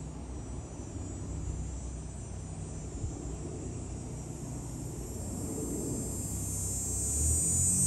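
Low, steady rumble of a departing Boeing 787-9 airliner's jet engines.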